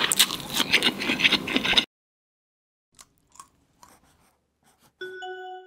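Close-miked biting and chewing of a piece of fried chicken, full of small clicks and crackles, cutting off abruptly about two seconds in. After a near-silent gap with a few faint ticks, a single ringing chime sounds about five seconds in and fades.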